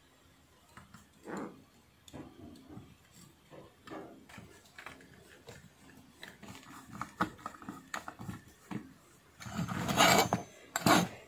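Bench handling noises of a car amplifier being reassembled: small clicks and taps of tools and parts, then a louder clattering rustle of about a second near the end as the amplifier's metal heatsink body and circuit board are turned over, and a shorter one just after.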